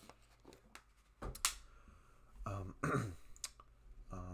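A man clearing his throat: a sharp short burst about a second in, then a longer voiced rasp around three seconds in.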